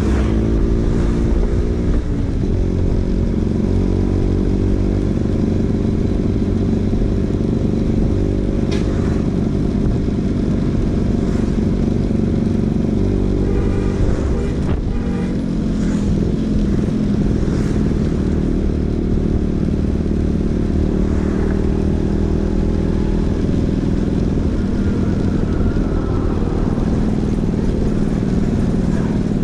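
Vespa PX 150's two-stroke single-cylinder engine running through an aftermarket DRC Victory racing exhaust, its pitch rising and falling with the throttle, with a sharper drop and climb about halfway through.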